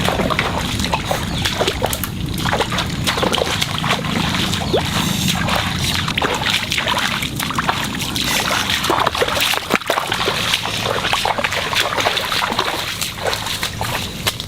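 Water splashing and sloshing in irregular, closely spaced strokes.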